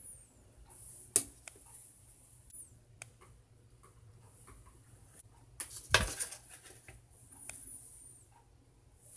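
Hands handling soft bread and a plastic bread mold on a wooden cutting board: light taps and clicks, with one loud knock about six seconds in and a sharper tap about a second in. Faint high chirps come and go in the background.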